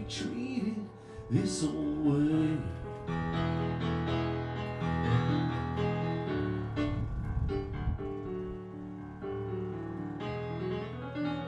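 Electric stage keyboard played live in a piano voice, with held chords and a melody line moving over them.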